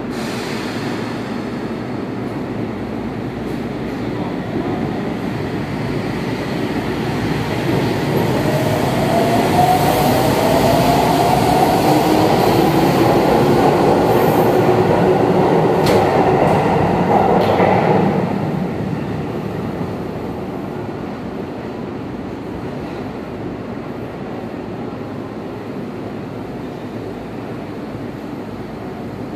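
Sendai Subway Namboku Line 1000 series train pulling out of the platform. The motor whine rises in pitch as it accelerates past, with rumbling wheel noise and a few sharp clicks, loudest midway. It then fades quickly into the tunnel, leaving a steady rumble.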